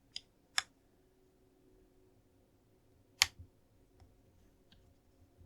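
Plastic LEGO bricks being handled and pressed together: a few sharp clicks, the loudest about three seconds in, with quiet handling between.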